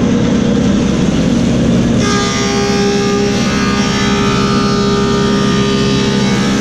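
Woodmaster 725 planer with a helical cutterhead running with a steady motor hum; about two seconds in, a black cherry slab reaches the cutterhead and the cut adds a steady higher-pitched whine.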